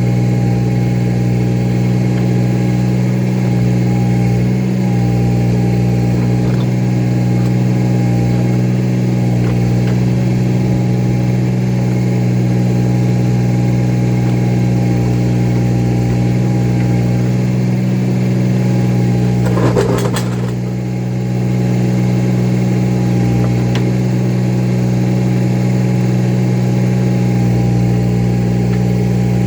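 Tractor engine running steadily at a constant speed. About two-thirds of the way through there is a single brief clank, and the engine sound eases slightly for a moment after it.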